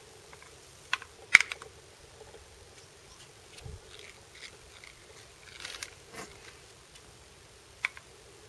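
A cat moving through tall dry garden grass, with soft rustling and a few sharp clicks; the loudest click comes about a second and a half in and another near the end.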